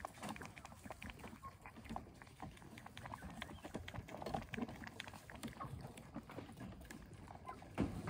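Faint, irregular wet clicks and squirts at a small glass jar as a sheep is hand-milked into it while a kitten laps milk from it, with one louder knock near the end.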